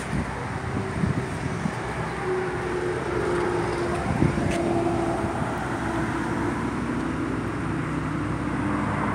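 Steady low hum of a running motor-vehicle engine, with a few light knocks about a second in and again near the middle.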